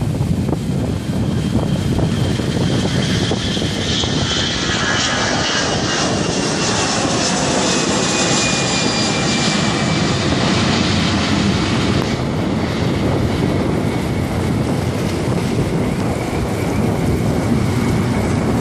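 Airbus A318 airliner's jet engines at takeoff power through the takeoff roll and climb-out: a loud, steady rush of engine noise, with a high whine that slides down in pitch a few seconds in.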